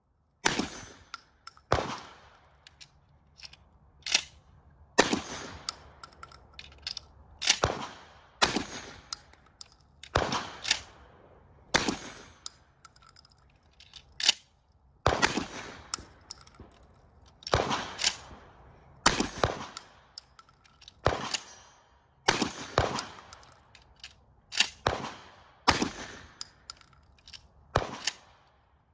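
Benelli M4 semi-automatic 12-gauge shotgun firing single shots over and over, about two dozen of them at irregular gaps of roughly a second, each trailing off in an echo. Fainter metallic clicks and clacks come between the shots.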